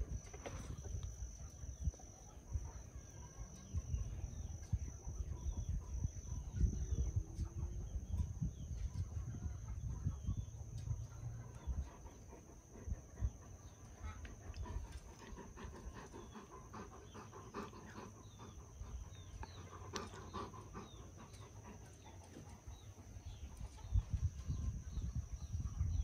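A Great Pyrenees dog making low, rough breathing and grumbling sounds close to the microphone, with fainter higher sounds in the second half.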